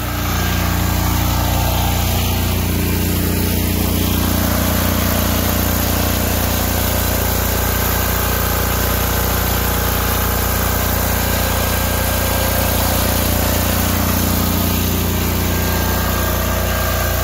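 Atlantic Tools 6500-watt diesel generator running steadily, really loud, with a deep, even engine drone. It grows louder in the first second, then holds steady.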